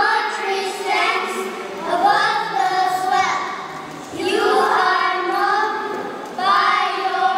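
A group of young children reciting a poem in unison in a sing-song chant. Their voices hold drawn-out notes in phrases about two seconds long.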